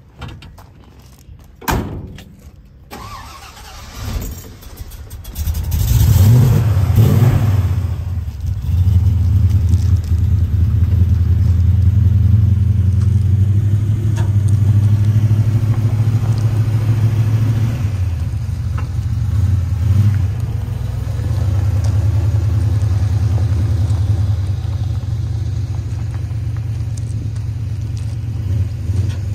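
1971 Ford pickup truck engine cranked and catching about five seconds in, revved briefly, then running steadily as the truck drives off. A few small clicks come before it starts.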